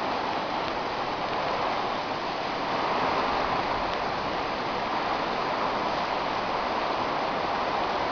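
Heavy tropical-storm rain pouring steadily, a little louder about three seconds in.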